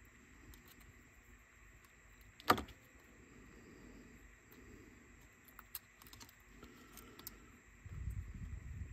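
Small parts of a Sony WM-EX999 cassette Walkman being handled and fitted together during reassembly: one sharp click about two and a half seconds in, a few faint ticks later on, and low rubbing and handling noise near the end.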